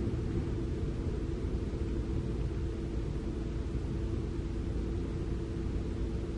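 Steady low rumble of heavy diesel machinery running, with a constant hum and no distinct knocks or changes.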